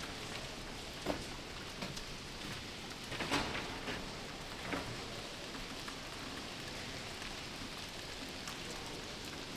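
Steady rain-like hiss with a few short knocks or crunches scattered through it, the loudest about three seconds in.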